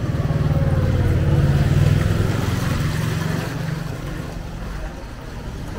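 A motor vehicle's engine passing close by, growing louder to a peak about two seconds in and then fading away.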